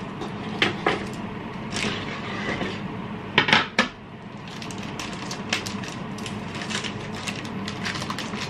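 Dishes and cutlery clinking: a few sharp knocks, the loudest a quick cluster about three and a half seconds in, over a steady low hum.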